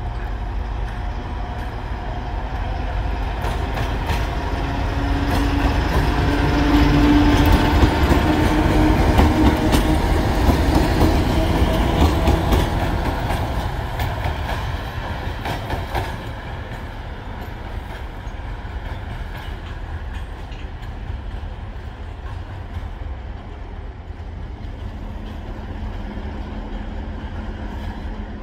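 2TE25KM twin-section diesel locomotive passing: its diesel engines' low rumble swells as it draws level, about 7 to 13 seconds in, with wheels clicking over rail joints, then fades as it moves away.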